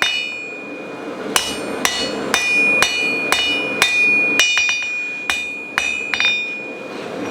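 Hammer blows on steel over an anvil, about two a second with a few quick light taps among them, each blow leaving a high metallic ring from the anvil: hand-forging to straighten warpage out of the piece.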